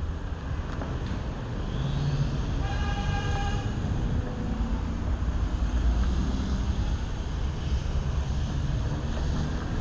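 Steady low rumble of street noise and the Onewheel rolling over a concrete sidewalk. About three seconds in, a vehicle horn sounds once for about a second.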